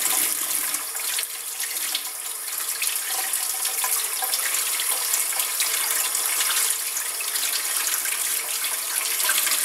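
Kitchen faucet running into a stainless steel sink, the water splashing over cooked chicken breasts as they are rubbed and rinsed by hand.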